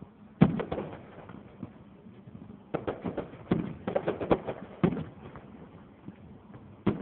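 Aerial firework shells bursting: one loud bang about half a second in, a run of quicker bangs and pops around the middle, and another bang near the end.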